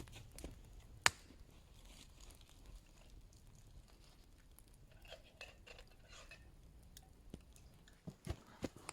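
Faint rustling and scattered clicks of camping gear being handled, with one sharp click about a second in.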